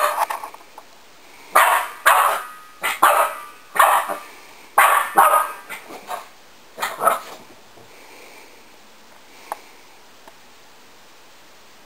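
Six-month-old Boston Terrier puppy barking: about ten short barks, some in quick pairs, then it stops about two-thirds of the way through.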